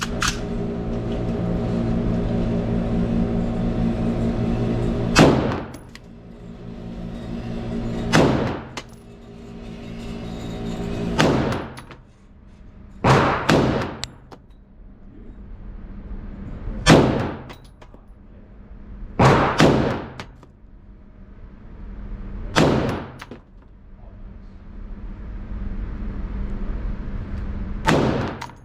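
AR-15-type semi-automatic rifle fired in slow single shots, about ten in all, starting about five seconds in, twice as a quick double. A steady hum is heard before the first shot.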